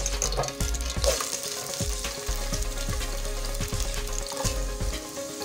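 Chopped red onions going into hot vegetable oil in a pot and frying, a steady sizzle with quick crackles.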